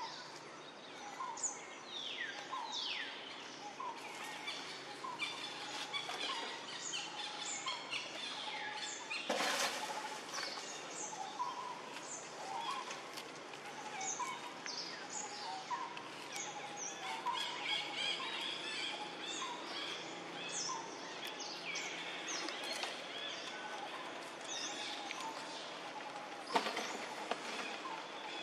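Wild birds chirping and calling: many short high notes throughout, with two falling whistles a couple of seconds in. A short noisy burst about nine seconds in and another near the end.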